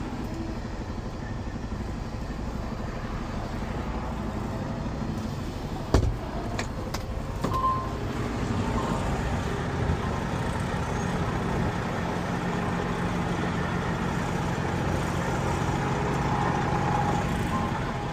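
Semi truck engine running steadily, a low hum that grows a little louder about eight seconds in. A sharp knock comes about six seconds in, with a few fainter clicks soon after.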